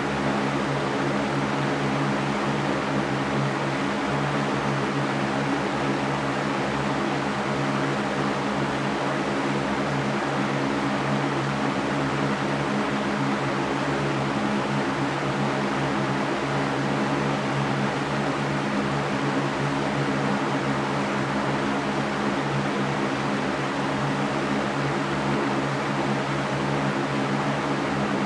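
Electric fan running steadily: an even whooshing hiss with a low motor hum underneath.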